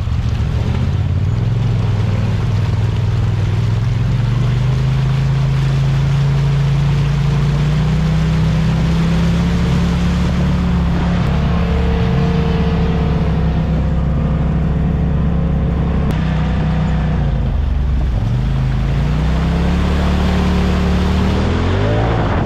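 Polaris RZR side-by-side engine running under load as it drives through mud and water, the revs climbing over the first few seconds and holding high. The engine eases off about three-quarters of the way through, then revs up again near the end.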